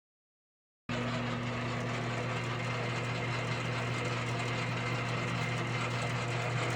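CopperMine CT-500 automatic wire stripping machine running, its electric motor giving a steady hum over a constant mechanical whir, as Romex cable is fed through to strip the outer jacket. It starts about a second in, after a brief silence.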